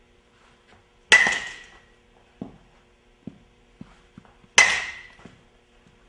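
Baseball bat striking a ball twice, about three and a half seconds apart, each a sharp crack that rings briefly. Lighter knocks come between the hits.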